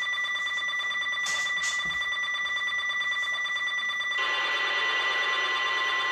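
Electronic alert tones from a NOAA Weather Radio broadcast: steady high tones, then about four seconds in a louder, harsher, buzzier alarm tone cuts in and holds.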